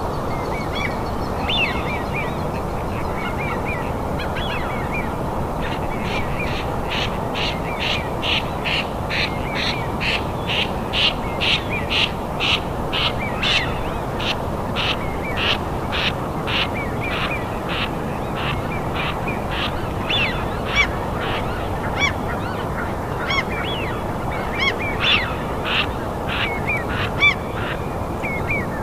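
A bird calling a long, even series of sharp repeated calls, about two a second, for some fifteen seconds, with scattered shorter chirps around it. Under it runs a steady low rushing noise.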